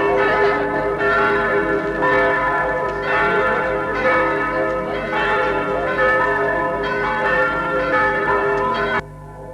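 Church bells pealing, with overlapping strikes about once a second and a long ringing hum under them. The peal cuts off abruptly near the end.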